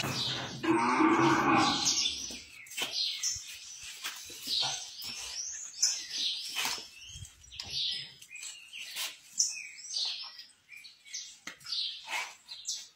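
A cow moos once, a long call starting about half a second in, while small birds chirp repeatedly throughout.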